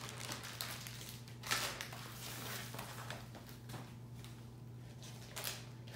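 Soft rustling and crinkling of a diamond painting canvas and its clear plastic cover film as it is smoothed flat by hand, with two slightly louder rustles, about a second and a half in and near the end. A low steady hum runs underneath.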